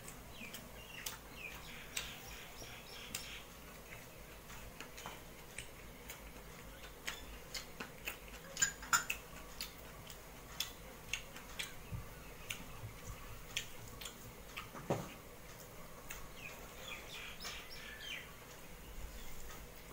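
Fingers mixing rice and side dishes on a steel plate: scattered light clicks and taps throughout, with a few short chirping squeaks near the start and near the end.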